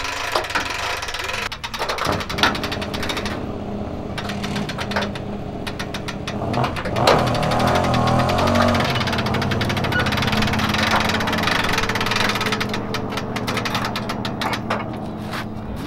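Hand-cranked trailer winch ratcheting in a fast run of clicks as it pulls a car up onto a car trailer, with an engine running steadily underneath.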